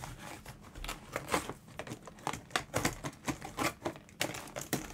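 Doll box packaging crinkling and tearing in quick, irregular crackles as the doll is ripped out of its cardboard box and clear plastic insert.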